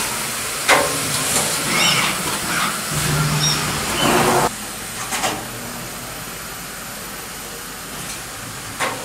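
Glass screen printing machine running: a steady hiss with several short sudden bursts of noise and a few brief squeaks from its moving mechanisms. It turns quieter about four and a half seconds in.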